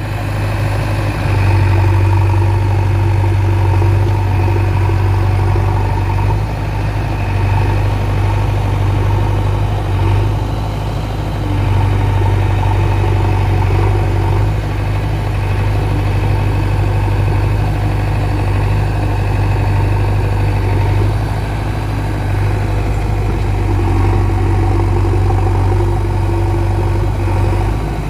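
Diesel engine of a JCB backhoe loader running steadily at work with a deep, constant hum, its level dipping briefly a few times as the load eases.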